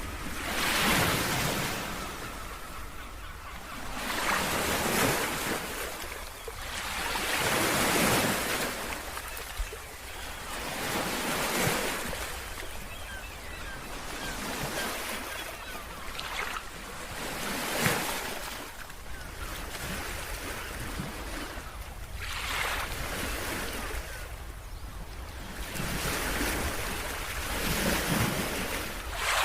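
Sea waves breaking and washing up a beach, each surge of hiss building and fading about every three to four seconds, over a steady low rumble of wind on the microphone.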